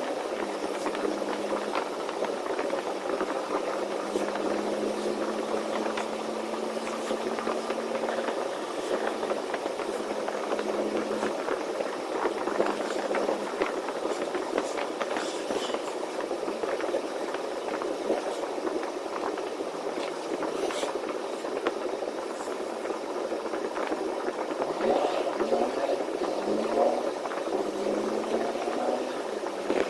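Semi-truck cab while driving: steady engine drone and road noise, with scattered small clicks and rattles.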